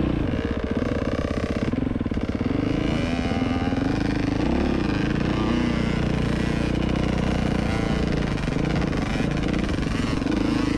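Dirt bike engine running while riding a trail, its pitch rising and falling with the throttle.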